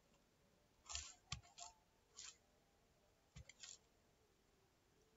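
A few faint, scattered clicks of keys being pressed on a computer keyboard: one group about a second in, another at about two seconds, and a short cluster past three seconds.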